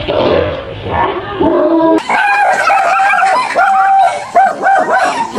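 A dog barking and yelping, then from about two seconds in a fast run of short, high yelping barks.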